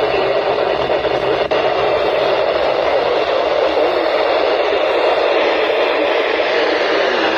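Steady radio static from a weather radio receiver: an even hiss of noise with no tone or voice coming through.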